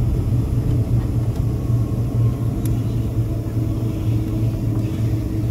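Cabin noise of a Boeing 767 taxiing, heard from inside the cabin: its jet engines and rolling airframe make a steady low rumble. A faint steady hum joins about three seconds in.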